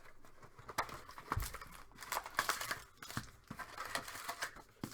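Hands tearing open a sealed trading card box and its wrapping: irregular crinkling and tearing of plastic wrap and card stock.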